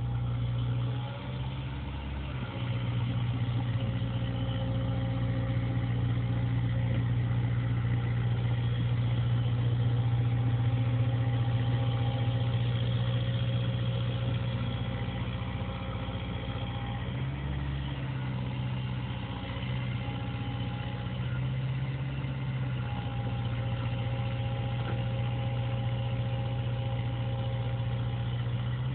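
CAT 305 mini excavator's diesel engine running steadily, with steady higher tones above the low drone. It gets a little louder about two and a half seconds in and eases back around the middle.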